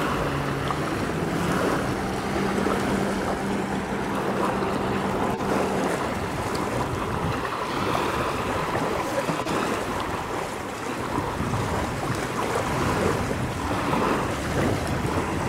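A distant jet ski's engine drones at a steady pitch, fading out about six seconds in. Choppy lake water and wind buffeting the microphone run throughout.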